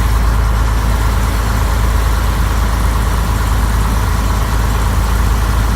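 Rain falling steadily on a boat: an even, unbroken hiss over a deep low rumble.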